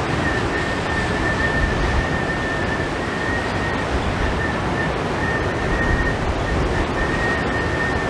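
Strong wind buffeting the microphone in low rumbling gusts over the wash of rough surf breaking on a rocky shore, with a thin high whistle held steady underneath.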